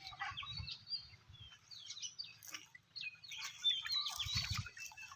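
Small birds chirping: many short, high calls scattered throughout, with a couple of soft low thuds underneath.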